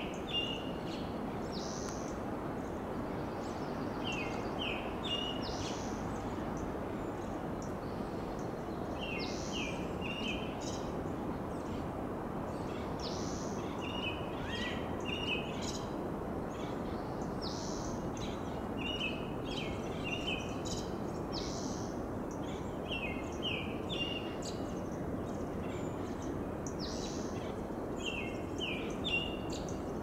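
American robin singing: short phrases of three or four clear notes, repeated every four to five seconds, over a steady low rush of background noise.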